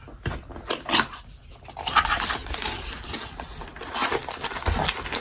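Cardboard product box being opened by hand: a few light clicks and taps, then from about two seconds in a continuous rustling and scraping of cardboard and packaging as the contents are uncovered.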